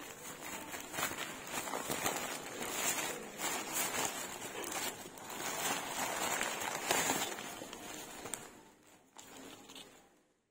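Plastic packaging crinkling and rustling as hands twist and pull open a grey plastic mailer bag, a dense run of crackles that fades out near the end.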